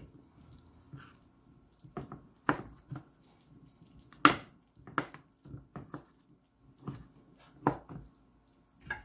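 Chef's knife chopping through cooked chicken breast onto a plastic cutting board: a dozen or so irregular knocks of the blade hitting the board, the loudest about four seconds in.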